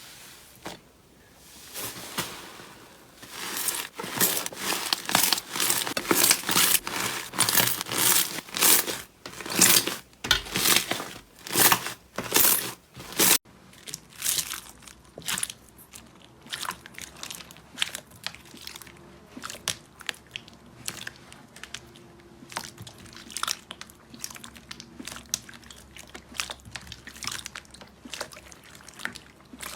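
Slime being squeezed and worked, giving a dense run of crackling, popping clicks that is loudest for the first half and then turns sparser and softer.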